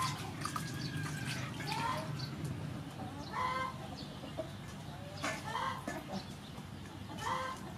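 Chickens clucking, with short pitched calls every couple of seconds.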